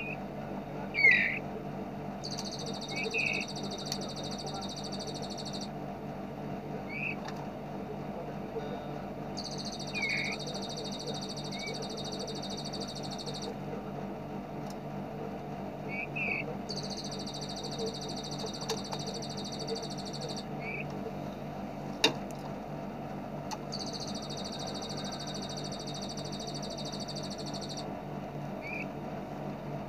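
Looped birdsong recording for training caged songbirds: a very fast, high, rattling trill lasting about three and a half seconds, repeated four times about every seven seconds. Short single chirps come between the trills, with a sharp click about 22 seconds in, over a steady low hum.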